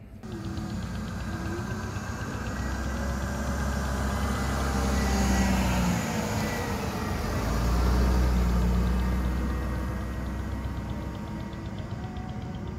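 A 1996 Mercedes-Benz sedan driving past on a road, with engine and tyre noise. The sound swells as the car comes close, about five seconds in and again about eight seconds in, then fades as it drives away.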